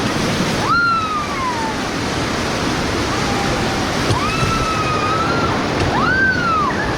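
Continuous rush of whitewater rapids under a raft, with several long, high-pitched yells from the rafters: a falling one about a second in, a longer held one around four seconds in, and a short rising-and-falling one near the end.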